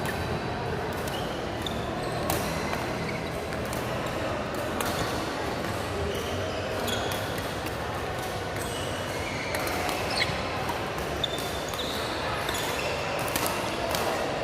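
Badminton rally in a sports hall: sharp cracks of rackets striking the shuttlecock every second or two, short high squeaks of court shoes, and faint voices.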